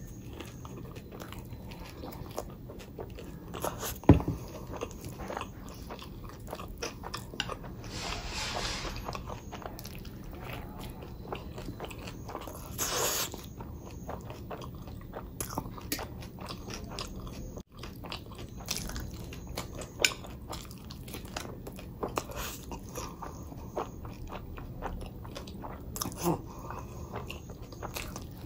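Close-miked eating sounds: a person biting and chewing food, with crunchy bites and many small wet clicks. A single sharp knock about four seconds in is the loudest sound.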